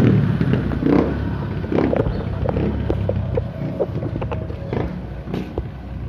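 Small motorcycle with an Apido aftermarket exhaust, its pipe joint welded instead of fitted with the stock elbow, running as it rides away, its exhaust note fading. Scattered light clicks and knocks over it.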